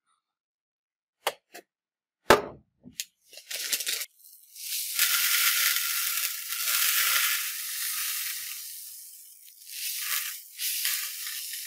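A few sharp clicks and one loud knock, then white granular powder poured in a stream into a plastic tub: a dry, grainy hiss that swells, eases off, and picks up again near the end.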